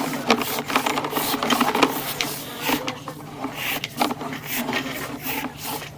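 Sewer inspection camera's push cable being fed into a cleanout pipe, with irregular rapid clicking and rattling over a steady low hum.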